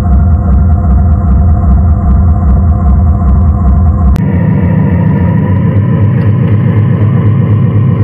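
Simulated engine sound from an Arduino sound module on an RC crawler, playing a steady low engine rumble. About four seconds in, it changes abruptly to a somewhat different engine rumble with a faint high whine.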